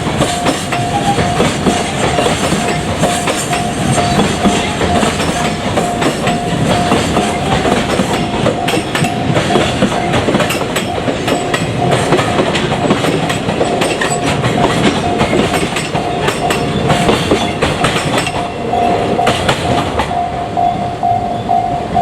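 Long container freight train hauled by an ED76 electric locomotive rolling past, its wheels clattering over the rail joints in a steady run of clicks. A level-crossing warning bell rings throughout as a steady repeating high tone.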